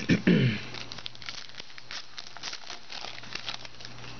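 Trading-card pack wrapper crinkling and tearing as the pack is ripped open and the cards slid out, a quick run of small crackles. A short voice sound comes at the very start.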